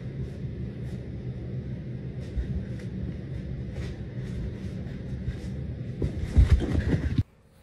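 A steady low rumble with faint scuffs and taps, then a cluster of heavier thumps about six seconds in, as a man crawling on all fours lunges and slaps his hands and knees down on the carpet. The sound cuts off suddenly just before the end.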